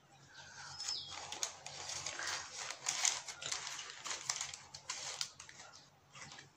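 Paper burger wrapper rustling and crinkling as the burger is handled and lifted out by hand, in a run of irregular crackles that dies down near the end.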